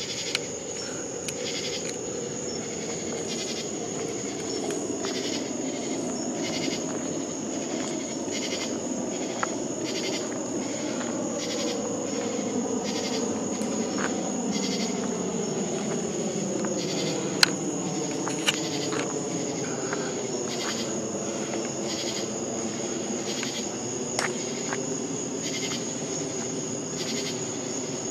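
Night insects chirping: a continuous high hum with a regular pulse about twice a second, over a steady lower rumble and a few faint clicks.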